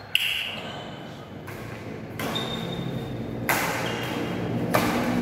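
Badminton rackets striking a shuttlecock in a rally: about four sharp hits, roughly a second or more apart, each with a short high ping from the strings and an echo in the hall.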